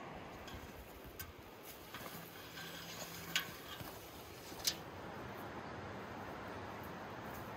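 Footsteps through ferns and undergrowth over a steady outdoor hiss, with a few sharp clicks, two of them louder, a little past the middle.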